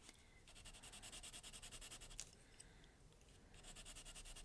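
Faint, fast back-and-forth scratching of a colored pencil shading on a smooth vellum-surface Bristol art tile, stopping for about a second midway and starting again.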